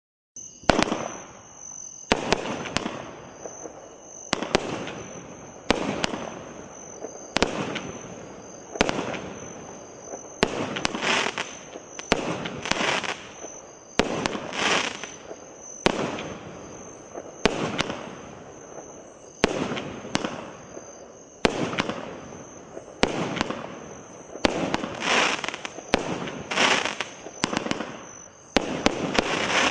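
A "Brain Sneeze" consumer firework repeater cake firing about twenty shots, roughly one every second and a half. Each shot is a sharp bang followed by a noisy tail that fades over about a second. A steady high-pitched tone runs underneath.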